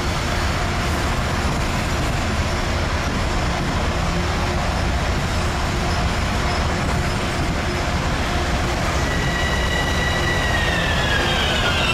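A train running by with a steady rail rumble; near the end, high-pitched wheel squeal sets in and slides downward in pitch.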